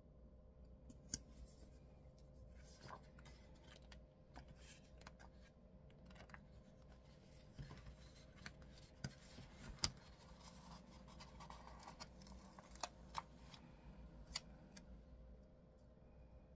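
Faint handling of paper and sticker sheets: rustling, with scattered light taps and clicks as box stickers are peeled off and pressed onto a planner page. The clicks come mostly about a second in and between roughly nine and fourteen seconds in, over a faint steady hum.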